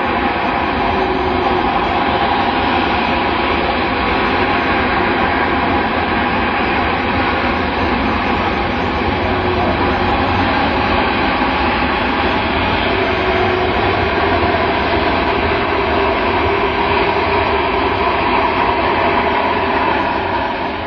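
Boeing C-17 Globemaster III's four turbofan engines running steadily at high power in reverse thrust as the aircraft backs up along the runway: a loud, unbroken jet noise with several held whining tones.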